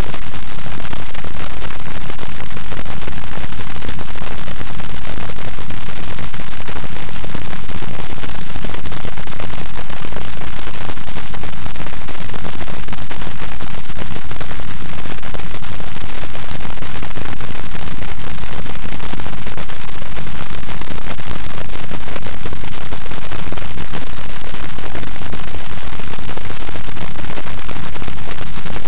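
Loud, steady static hiss filling the sound track, even and unchanging, with no speech over it.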